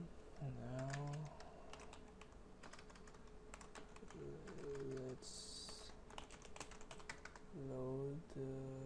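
Typing on a computer keyboard: a steady run of quick keystrokes. A low voice makes short wordless sounds three times, about a second in, midway and near the end.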